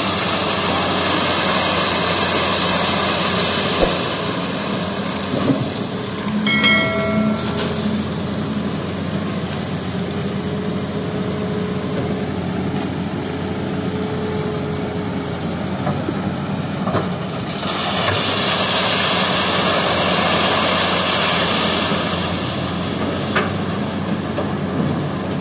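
Diesel engine of a Hitachi EX200 hydraulic excavator running under load as it digs and loads river sand, with a steady drone that swells louder twice. A brief high squeal comes about seven seconds in.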